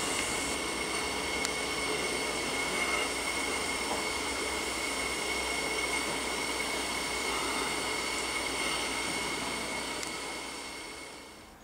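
Steam locomotive standing in steam: a steady hiss with several high, steady whining tones, fading out near the end.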